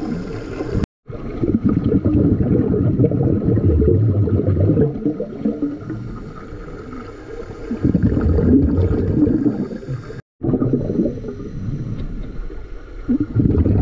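Muffled underwater bubbling and rumbling from scuba divers' exhaled air, heard underwater. The sound cuts out completely twice, briefly, about a second in and again about ten seconds in.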